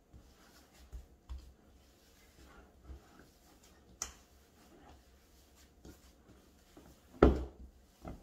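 Hands kneading wet grated cassava dough in a bowl: faint squishing and rubbing with a few light clicks and knocks, and one loud thump about seven seconds in.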